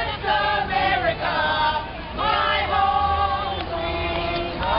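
A group of people singing a worship song together, holding long notes in unison, with a faint low rumble underneath.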